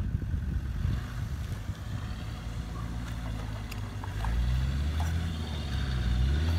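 A low, engine-like drone that wavers up and down in pitch and grows louder about four seconds in.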